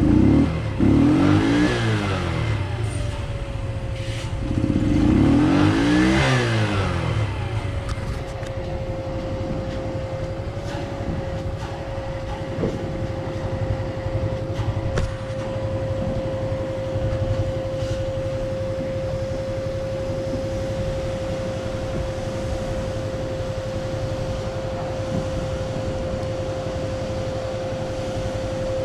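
Carburetted Junak 905 motorcycle engine, just started, blipped twice with the throttle, each rev rising and falling within a couple of seconds. It then idles steadily.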